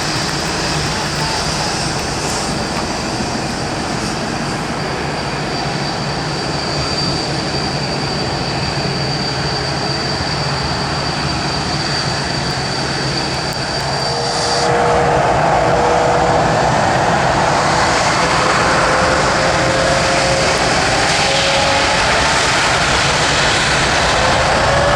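Boeing 787-9 Dreamliner's jet engines running with a steady high whine. About halfway through the noise gets louder and a tone slowly rises in pitch, as the engines spool up.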